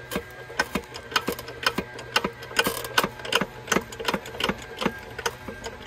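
Hydraulic jack in a shop press being pumped, clicking sharply about three times a second, as it pushes a worn wheel bearing out of its housing.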